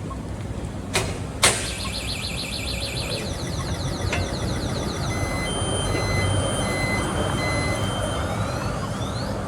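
Steady vehicle traffic noise with a low rumble. Two sharp clicks come about a second in, and a run of short, evenly spaced high beeps follows in the second half.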